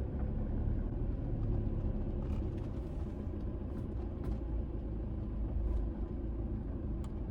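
A Toyota Fortuner 4x4 crawling slowly over a rocky off-road track: a steady low engine and drivetrain rumble, with a few faint clicks and knocks.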